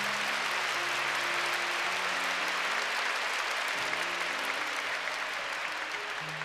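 Large arena audience applauding, a dense steady clatter of many hands, over soft background music of slow held chords.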